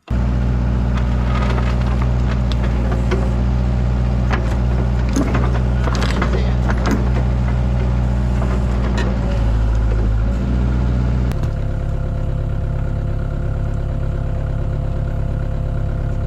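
Kubota KX161-3 excavator's diesel engine running, with scattered metallic clanks and knocks in the first half. About eleven seconds in the engine note changes and steadies.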